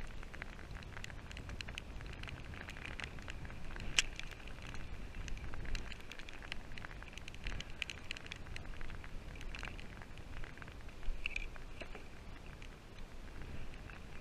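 Rain pattering on the kayak and the camera: a dense, irregular crackle of drops over a steady low rumble of wind on the microphone.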